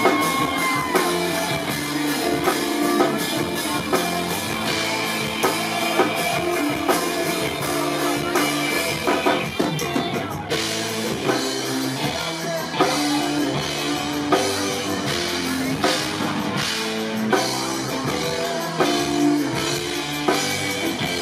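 Live rock band playing: drum kit keeping a steady beat under electric guitars and a shaken tambourine, with a held sung note that ends about a second in.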